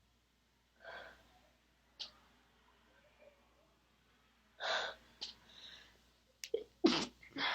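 A woman's stifled sneezes: a breath about a second in, a muffled burst at about four and a half seconds, then a quick run of short, held-in sneezes near the end, the loudest of them.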